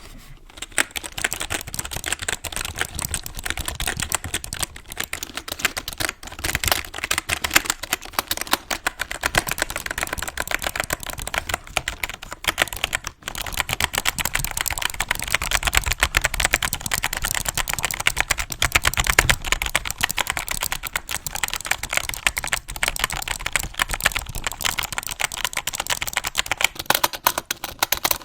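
Computer keyboard typed on without let-up in quick, dense clicks, with one short break about thirteen seconds in.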